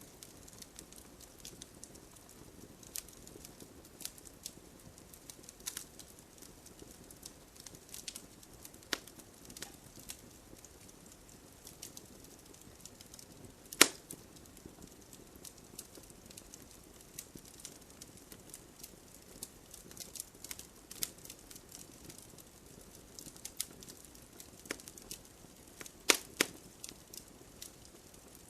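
Wood fire of burning logs crackling: irregular sharp pops and snaps over a soft low hiss, with one loud pop about halfway through and a quick cluster of loud pops near the end.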